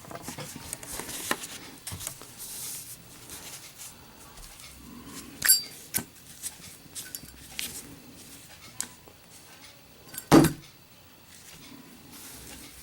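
Brass Zippo lighter with a steel insert being handled in a drop test: scattered light metallic clicks, a ringing metal clink about five and a half seconds in, and a loud sharp snap about ten seconds in as the lid comes down shut.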